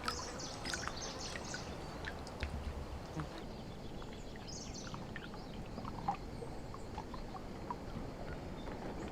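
Shallow lake water lapping and trickling, with scattered small drips and light splashes over a steady low background hum of wind.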